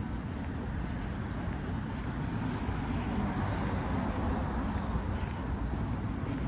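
Street traffic noise: a steady low rumble of road vehicles, swelling slightly midway as traffic passes.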